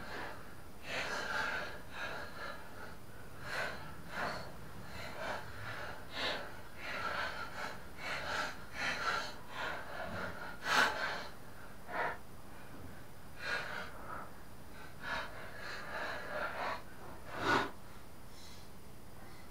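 Hand work on a rotary mower's blade disc: irregular short scrapes and clicks of metal parts being handled, the loudest about eleven seconds in and again near the end.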